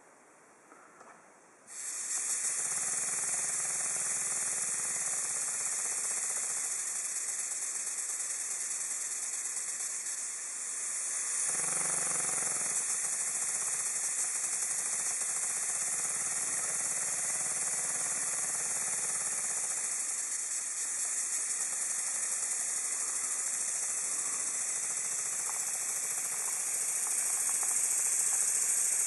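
Miniature vertical live-steam boiler feed pump, about four inches high, running on compressed air: a steady loud hiss of air through the pump, starting about two seconds in.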